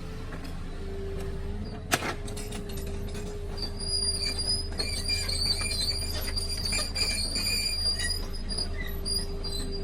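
Excavator working: a steady low engine hum, a single sharp knock about two seconds in, then high-pitched metallic squealing from about three and a half seconds in.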